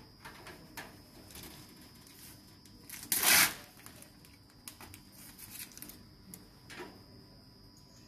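Clicks and light knocks of plastic lab ware (culture flasks, tubes and tube racks) being handled on a steel work surface. About three seconds in comes one loud rustling, tearing noise lasting about half a second. A faint steady high whine runs underneath.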